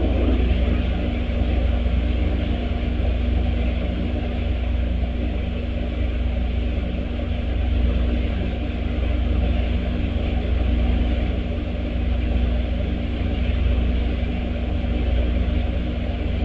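Steady low rumble with a constant mechanical hum underneath and an even hiss above, unchanging throughout.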